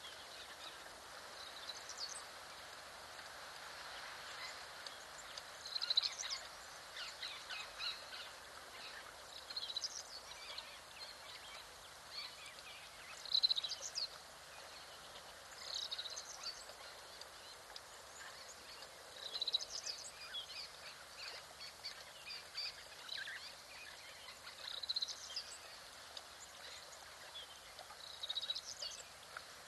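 Birds chirping in short bursts every few seconds over a faint steady outdoor hiss.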